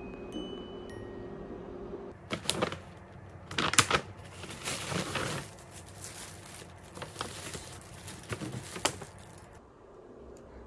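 Paper and plastic shopping bags rustling and crinkling as they are handled, with the loudest crackles about two and a half and four seconds in, growing sparser toward the end. Soft music tails off in the first two seconds.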